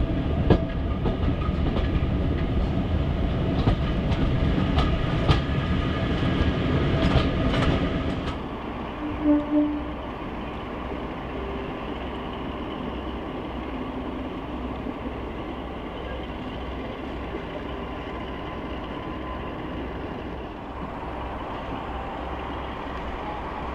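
A passenger train on the move, heard from one of its coaches: loud wheel noise with sharp clicks over the rail joints, then, after about eight seconds, a quieter steady rumble with an even low pulsing. About nine seconds in come two brief tones.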